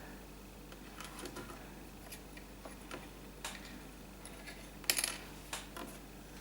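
Scattered light clicks and taps of hands working with Play-Doh modelling clay and plastic tools on a tabletop, the loudest a small cluster about five seconds in.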